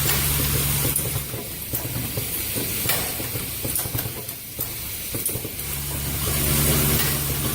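Automatic plastic zipper slider mounting and combining machine running steadily, with a hiss and light clicks; its low hum drops away about a second in and comes back near the end.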